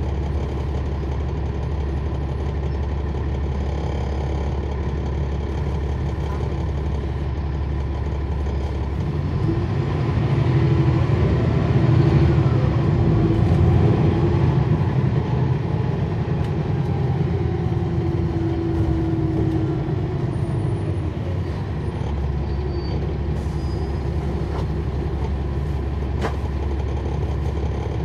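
Cummins ISL9 inline-six diesel of a NABI 40-SFW transit bus, heard on board. It idles steadily, grows louder and pulls harder from about nine seconds in, with its pitch shifting, and drops back to a steady idle about twenty-two seconds in.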